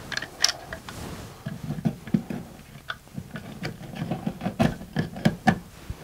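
Plastic cable pass-through wall plate being pressed and fitted into a hole cut in drywall: irregular clicks, taps and light knocks of plastic against the wall, mixed with cables and hands rubbing.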